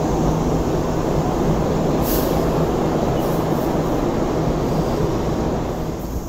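Hong Kong Light Rail car running along a platform: a steady rumble of wheels on track with a low, steady motor hum, and a short hiss about two seconds in.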